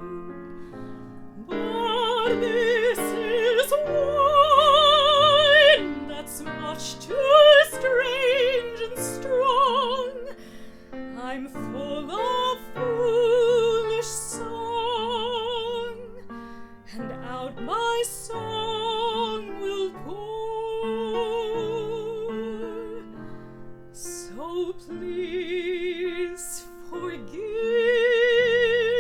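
A woman singing in an operatic style with wide vibrato on long held notes, accompanied by piano.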